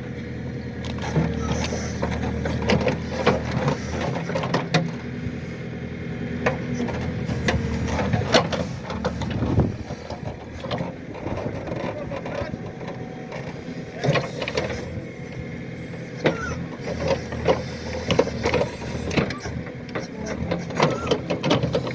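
Excavator engine running steadily while the machine digs out acacia stumps, with many sharp knocks and cracks of wood and bucket throughout.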